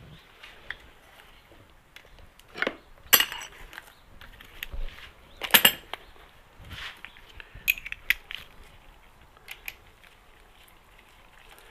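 Steel crankcase bolts clinking as they are handled and set into the bolt holes of a Yamaha R1 engine case: scattered sharp metallic clinks, the loudest about three seconds in and again about five and a half seconds in.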